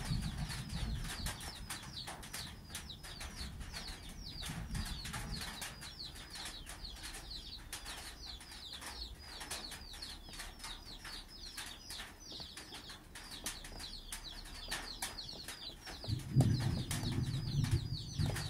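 Baby chicks peeping continuously, a dense run of short falling chirps, several a second. Near the end, thunder rumbles low beneath them.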